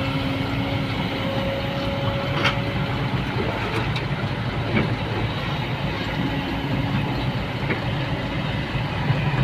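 A heavy vehicle or machine running steadily with a low rumble and an on-and-off hum, broken by a few short metallic clanks, the loudest about two and a half seconds in.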